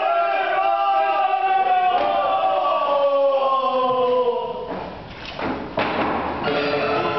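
A puppeteer's voice in a drawn-out, chanted declamation, with one long note falling slowly in pitch. About five to six seconds in come a couple of thumps, and then steady mechanical piano music starts.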